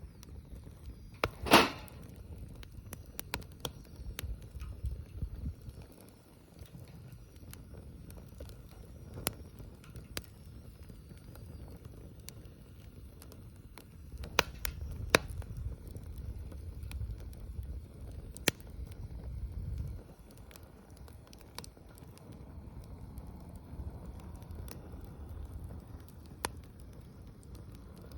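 Wood bonfire crackling with scattered sharp pops, one much louder snap about a second and a half in, over a low rumble that swells and fades a couple of times.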